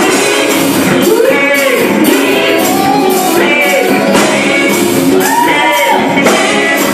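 Church gospel choir singing with a live band, a drum kit keeping a steady beat under the voices and a keyboard accompanying.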